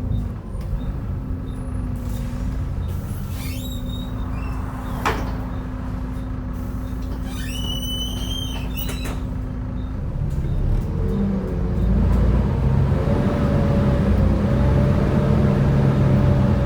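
Volvo B7TL bus's diesel engine idling with a steady hum, with a few short high squeals and a sharp click midway. About eleven seconds in the engine revs up and runs louder as the bus pulls away.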